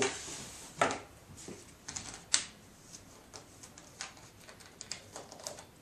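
Clicks and knocks of plastic being handled on a workbench: a clear plastic tub set down and the cap of a small bottle of gun bluing being worked. A few sharp knocks come in the first two and a half seconds, then lighter scattered ticks.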